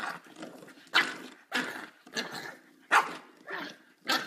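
Puppy barking at the baseboard in a string of short barks, about six in four seconds, the loudest about a second in and near three seconds in.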